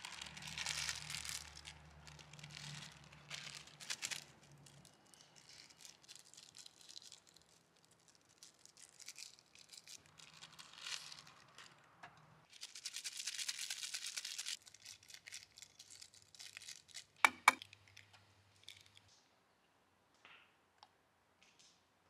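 Rustling and crinkling of gear being handled, in uneven bursts, then two sharp clicks in quick succession a little past the middle.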